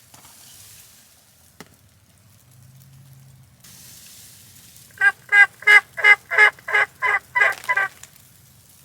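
A hunter's turkey call sounding a run of about nine quick hen yelps over about three seconds. It is a first, rough attempt at calling.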